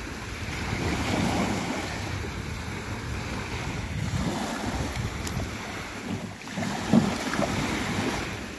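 Small waves washing up on a sandy shore, with wind buffeting the microphone, and a brief thump about seven seconds in.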